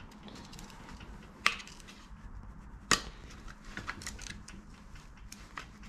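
A thin metal pick prying at the plastic clips of an AD244 alternator's rear cover: light scattered ticks and scrapes, with two sharper clicks about a second and a half and three seconds in.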